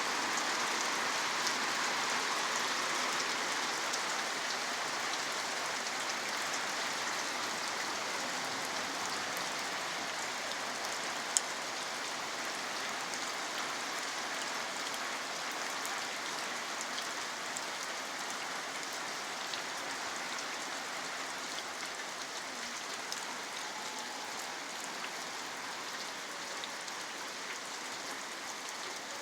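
Steady rain falling, a continuous hiss with scattered drop ticks, growing gradually a little quieter. A single sharp tick about eleven seconds in stands out above it.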